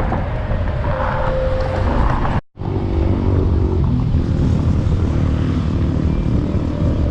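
Wind buffeting the microphone, a loud, steady low rumble, broken by a brief cut to silence about two and a half seconds in.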